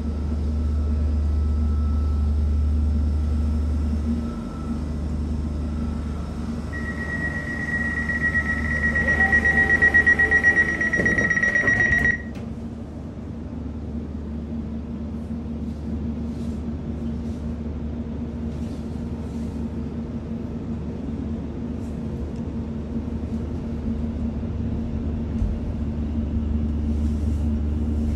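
Steady low electrical hum of a Class 701 electric train standing at a platform, heard inside the carriage. About seven seconds in, the door-closing warning starts beeping rapidly and loudly, then cuts off sharply about five seconds later as the doors close.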